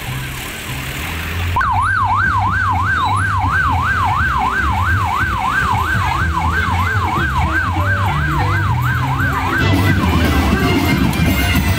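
A yelping siren sweeping rapidly up and down, about three times a second, starting a second or two in and stopping near the end. Under it runs a steady deep bass beat that keeps going after the siren stops.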